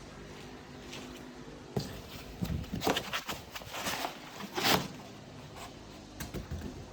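Handling noises while unpacking scooter parts: a cluster of sharp clicks, knocks and short rustles from about two to five seconds in, with a few more near the end.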